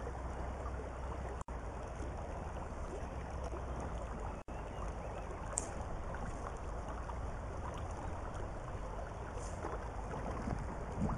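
Steady rushing of a shallow river running over stones. The sound cuts out briefly twice, about one and a half and four and a half seconds in.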